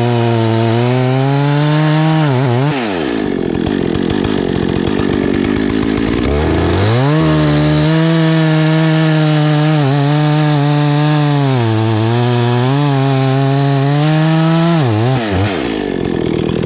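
Husqvarna 288XP two-stroke chainsaw cutting through a tree at full throttle, its engine note held low and steady under the load of the cut. Around three seconds in the pitch climbs as the saw is eased out and revs freely, then drops back under load about six and a half seconds in, with another brief rise near the end.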